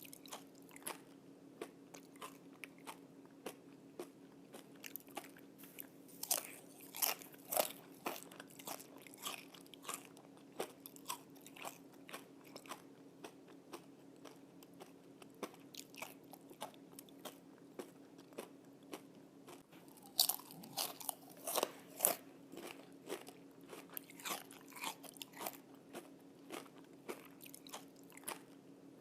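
Crispy pan-fried bacon crunching as it is bitten and chewed: a close run of sharp crackly crunches, with louder bursts about six seconds in and again about twenty seconds in.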